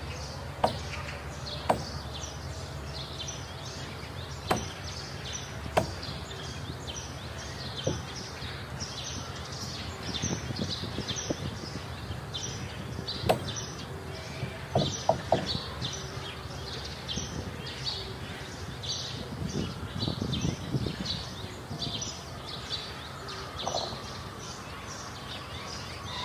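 Scattered sharp knocks of a hammer on the wooden planking of a boat hull under construction, with a quick run of three blows about fifteen seconds in. A steady high chirping repeats a few times a second behind them.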